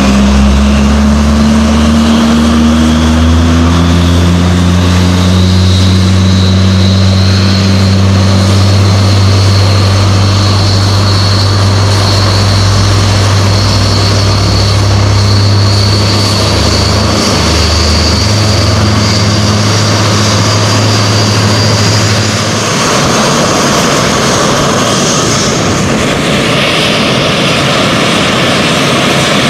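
Twin Rolls-Royce Turbomeca Adour turbofans of SEPECAT Jaguar jets running on the ground as they start up, with a loud whine rising slowly in pitch over the deep engine hum. About 22 seconds in the deep hum stops and the higher engine noise carries on.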